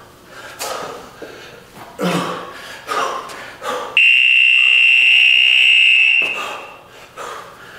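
Workout timer buzzer sounding one steady, high-pitched tone for about two seconds, then cutting off. It signals that the 10-minute round is over. Before it come short, hard exhalations from exercise.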